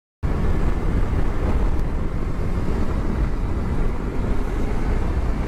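Motorcycle riding at about 40 mph, heard from a camera mounted on the bike: steady heavy wind noise buffeting the microphone over the engine and road noise, starting abruptly just after the start.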